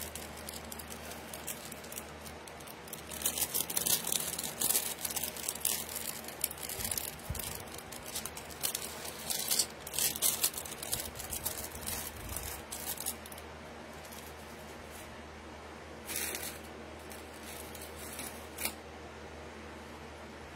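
Jewelry and small plastic bags being handled and packed away: a run of short crinkles, rustles and clicks that thins out after about 13 seconds, with a couple more near the end.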